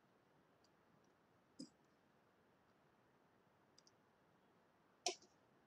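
Near silence broken by a few short computer mouse clicks, the loudest and sharpest about five seconds in.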